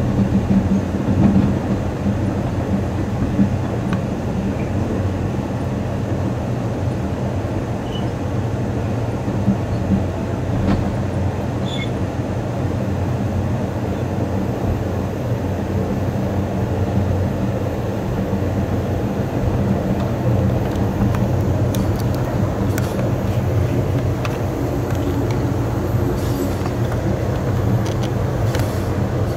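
Amtrak Coast Starlight passenger train running along the track: a steady rumble of wheels on rail with a low hum. A few light clicks come in the last several seconds.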